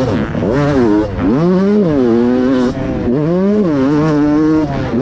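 Fantic XX250 two-stroke motocross bike's engine, heard from a camera mounted on the bike, revving up and dropping off about three times as the throttle is opened and closed over the track.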